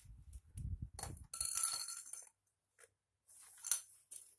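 Handling noise: a few light knocks and clicks with short rustling hiss, as hands move about a laptop on a hard floor.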